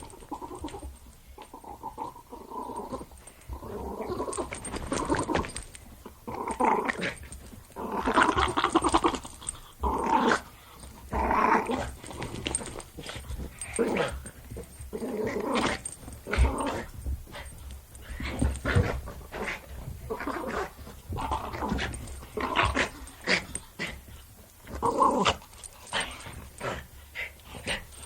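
Jack Russell Terrier growling in play, in irregular bouts with short barks and yips mixed in.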